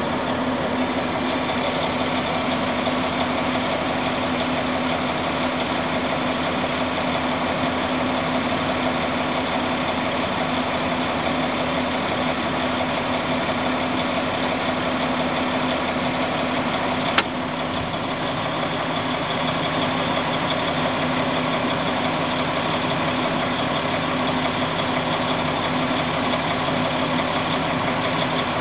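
Diesel engine of a rock truck (off-highway haul truck) running steadily, heard from inside its cab. One sharp click a little past halfway through.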